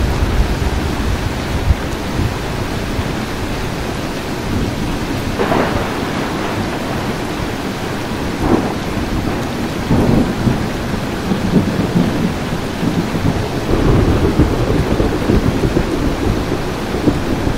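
Thunderstorm: steady rain with thunder. Sharp cracks come about five and a half, eight and a half and ten seconds in, and a longer rumble rolls from about eleven to sixteen seconds in.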